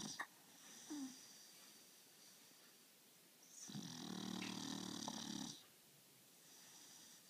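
Staffordshire bull terrier snoring in its sleep: one snore about two seconds long midway through, with faint breathing between snores.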